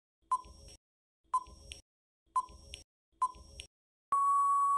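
Countdown timer sound effect: a short electronic beep about once a second, four times, then a longer held beep near the end marking the count running out.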